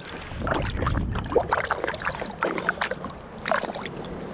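Water splashing and sloshing as a gutted sea bass is rinsed by hand in the water, a run of irregular small splashes.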